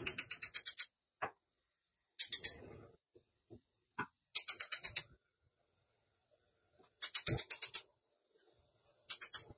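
Gas range spark igniter clicking rapidly, about ten clicks a second, in five short bursts as the burner knobs are turned and the burners light one by one.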